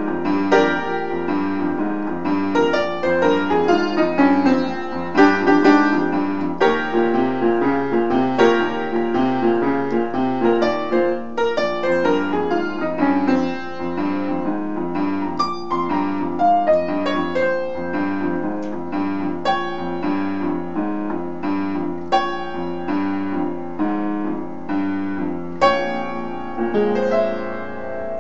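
Upright piano played solo in a bluesy swing style, with a steady rhythm of repeated chords under a melody.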